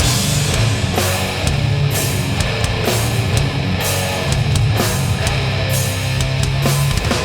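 Heavy hardcore band playing live at full volume: down-tuned distorted guitars and bass over drums, with crash cymbals hit at a steady beat.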